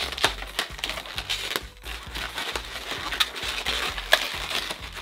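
Latex 160 modeling balloons squeaking, rubbing and crackling irregularly against each other as they are handled and their uninflated ends wrapped together, over background music.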